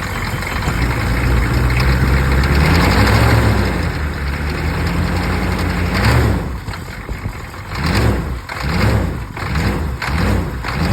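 1983 Chevrolet K20's 6.2L Detroit Diesel V8, an engine due for a top-end rebuild, running and being revved. Engine speed climbs about two seconds in and again about six seconds in, then rises and falls about every three-quarters of a second.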